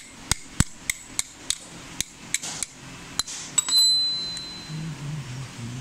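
A series of sharp metal taps and knocks on the head of a Newlong portable bag-closing sewing machine, about three a second at first and then irregular. One strike, a little past halfway, leaves a brief high ring.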